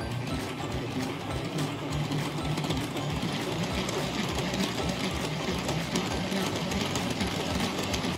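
Hand-powered Tupperware whisk container beating egg whites: a steady, rhythmic mechanical whirring of the turning beaters as the whites are whipped to a foam.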